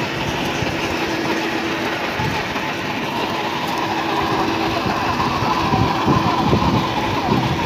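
A children's plastic ride-on toy quad rolling along a tiled pavement, its hard plastic wheels giving a steady rattling rumble with a faint steady hum under it, growing a little rougher in the second half.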